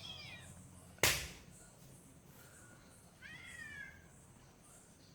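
Cat meowing twice: a drawn-out meow trailing off at the start and a shorter one about three seconds in. A sharp, loud click or knock about a second in is the loudest sound.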